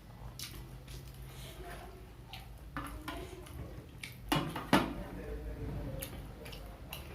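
Mukbang eating sounds: close-up chewing of fried snacks with mouth noises. There are scattered sharp clicks and knocks of plate and utensils, two of them loud about four and a half seconds in.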